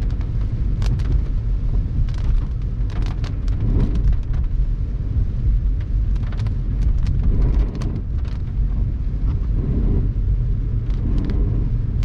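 Wind buffeting the microphone of a camera in a moving car, a loud, steady low rumble, with scattered short clicks throughout.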